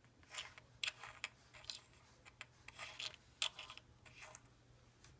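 Keycaps being picked up, swapped and set back down on a hard surface: a string of light, irregular clicks and short scrapes.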